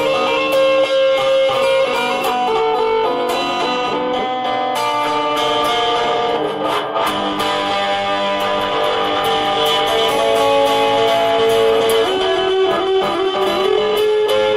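Electric guitar being played: a melodic line of picked notes, many held and left ringing, with the notes changing every second or so.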